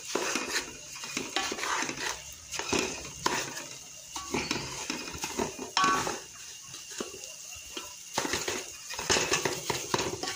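A wooden spatula stirring and scraping crumbly, oil-coated semolina around a metal pot in irregular strokes, with light knocks against the pan, as the semolina is roasted in oil for halwa.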